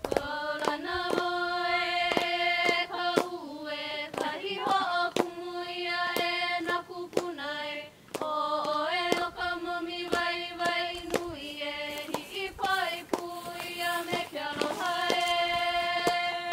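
Hawaiian chant: voices hold long, steady notes, broken by a short pause about halfway through, over a drum struck about twice a second.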